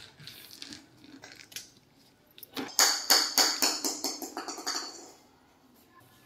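A quick run of hollow plastic knocks and clatters, about five a second for roughly two and a half seconds starting a little over two seconds in, as a toddler handles and bangs a large white plastic tub.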